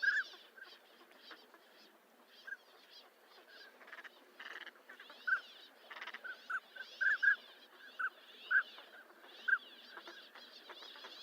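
Northern pintails calling: a dozen or so short whistled notes, spaced irregularly and sometimes in quick pairs or runs, over a fainter, higher-pitched chatter.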